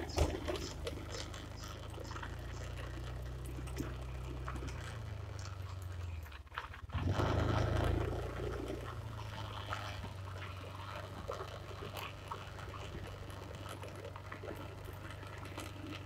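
Motorbike engine running at low speed with road and wind rumble, heard from a phone mounted on the bike. It drops away briefly about six seconds in, then swells louder for a couple of seconds before settling back to a steady run.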